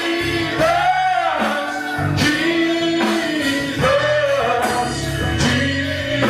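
Live church worship music: a band playing while a singer holds long, sustained notes that bend between pitches.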